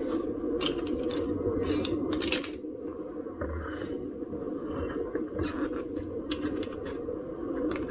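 Tyre levers clicking and scraping against the rim and tyre bead of a KingSong 16X electric unicycle wheel as the tyre is pried off: a scattered series of short clinks and scrapes over a steady low hum.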